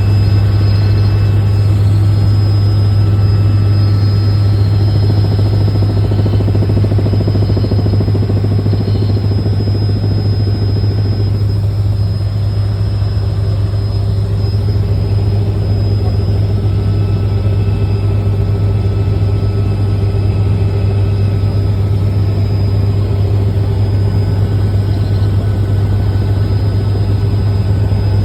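Robinson R66 turbine helicopter in steady flight: a loud, constant drone dominated by a deep hum, with a faint high whine over it.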